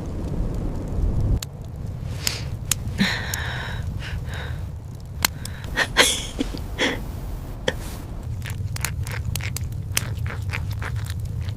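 Scattered sharp clicks and crackles over a steady low rumble, with a few short higher-pitched sounds between about two and seven seconds in.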